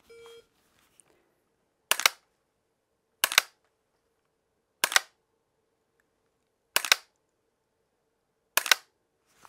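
A short electronic beep, then five sharp dry-fire clicks about one and a half to two seconds apart as the trigger of a SIG 516 AR-15 fitted with a Mantis BlackbeardX auto-resetting trigger system is pulled, one shot per target.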